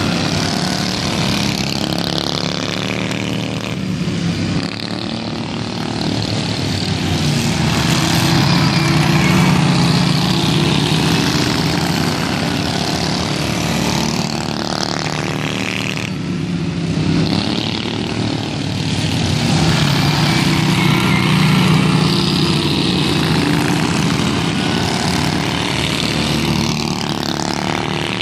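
Several pro-stock racing lawn tractors' small engines running hard at high revs, the sound swelling and fading as the tractors come past and move away.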